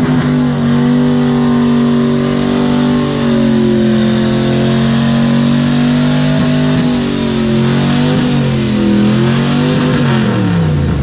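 Vehicle engine running hard under steady throttle, its pitch wavering slightly, then falling away near the end as the revs drop.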